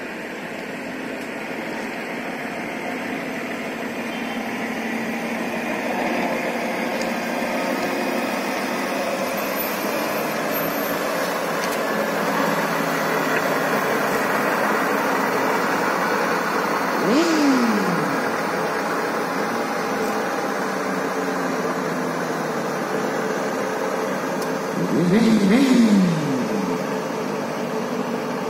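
Heavy-haulage tractor unit's diesel engine running as it slowly pulls a multi-axle low-loader past, growing louder over the first several seconds. Two brief, louder sounds fall in pitch, about 17 seconds in and again about 25 seconds in.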